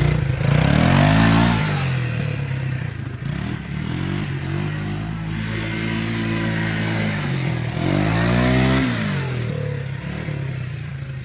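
ATV (four-wheeler) engine running close by, revving up about a second in and again about eight seconds in, with a steadier run between the two revs.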